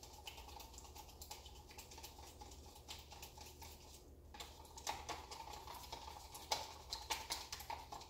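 Acrylic paint being stirred in a cup: quiet, irregular clicks and taps of the stirrer against the cup, coming more often in the second half. More paint is being mixed into runny white paint to thicken it.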